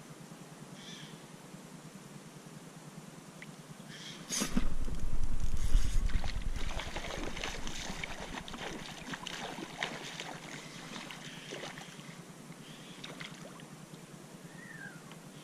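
Knocking and deep rumble of movement on a plastic sit-on-top fishing kayak, starting suddenly about four seconds in and loudest for about two seconds, then a run of crackling clicks that die away over several seconds.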